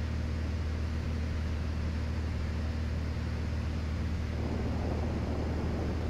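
Piper Turbo Arrow's turbocharged six-cylinder engine and propeller droning steadily in flight, heard from inside the cockpit.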